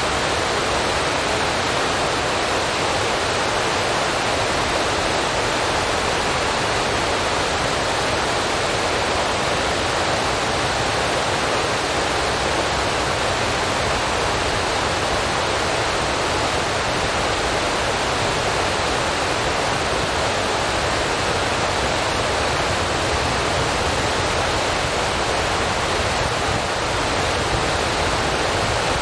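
A steady, even rushing hiss like static, with no other sound standing out.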